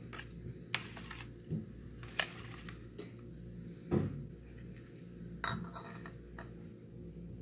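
Kitchen utensils and dishes clinking and knocking: about half a dozen separate light clinks, the loudest about four seconds in, over a steady low hum.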